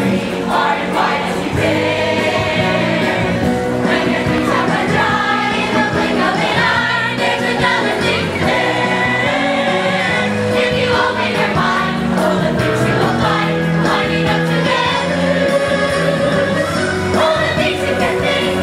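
A group of young voices singing a musical-theatre number together, with instrumental accompaniment.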